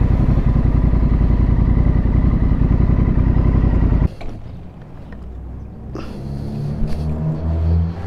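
Motorcycle engine running steadily with a dense, even firing pulse. About halfway through it cuts off abruptly and gives way to a much quieter low hum with shifting tones.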